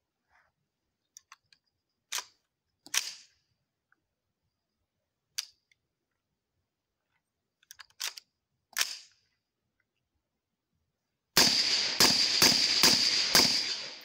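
Suppressed rifle firing: a few single sharp reports spread out, then near the end a rapid string of about five shots roughly half a second apart, the loudest part.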